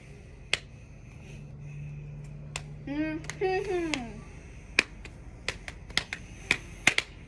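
Scattered sharp clicks from hands, about a dozen, coming faster near the end. A short wordless voice, rising then falling in pitch, about three seconds in.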